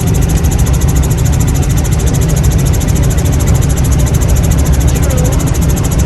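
Helicopter engine and rotor noise heard from inside the cabin in flight: a loud, steady drone with a fast, even pulsing.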